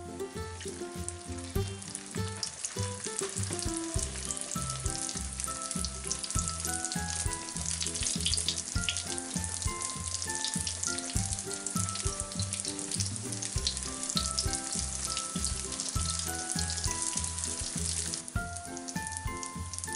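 Flattened yeast dough frying in plenty of hot oil in a frying pan: a dense, steady sizzle and crackle that drops away shortly before the end, heard over background music.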